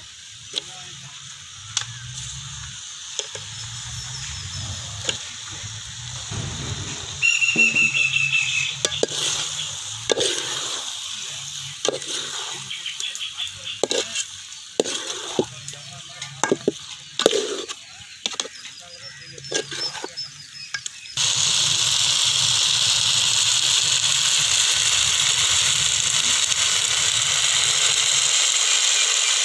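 Quail meat being stirred in a pan of fried onion-tomato masala: a spoon knocks and scrapes against the pan again and again. About two-thirds of the way through, a loud steady sizzle of the meat frying starts abruptly.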